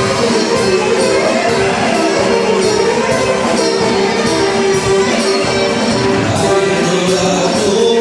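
Greek folk dance music with a steady beat, played for a circle dance.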